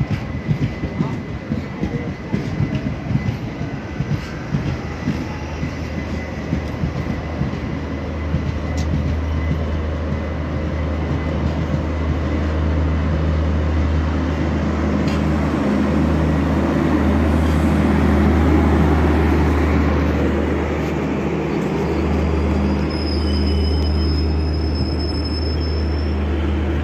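Garib Rath Express coaches running past close by, wheels clattering rapidly over the rail joints. After about six seconds the clatter gives way to a steady low hum that swells and eases, and a faint high whine comes in near the end.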